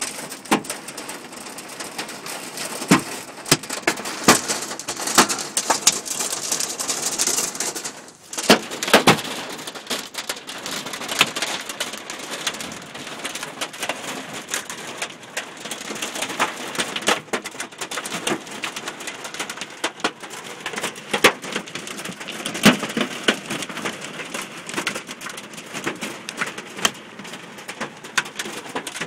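Large hailstones pelting a car's body and windscreen, heard from inside the car. Frequent irregular sharp hits ring out over a steady hiss of falling hail and rain.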